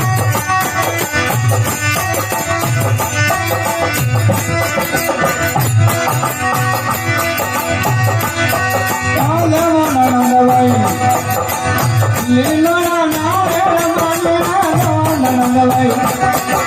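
Rajasthani folk devotional music (a desi bhajan) with a steady drum beat; about nine seconds in, a gliding melodic lead line comes in over it.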